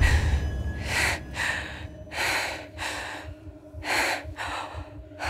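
A person breathing hard in gasps, one sharp breath roughly every second.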